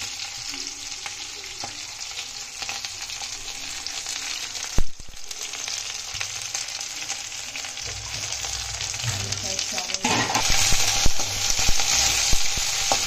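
Chopped onions, garlic and green chillies sizzling in hot oil in a metal kadhai over a high flame. There is a single sharp knock about five seconds in. From about ten seconds in, the sizzle grows louder as a slotted metal spatula stirs the onions, scraping and clinking against the pan.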